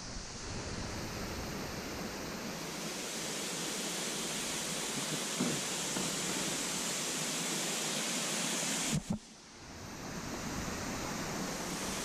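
Waterfall cascading over rocks, a steady rush of falling water. The sound dips briefly about nine seconds in, then comes back.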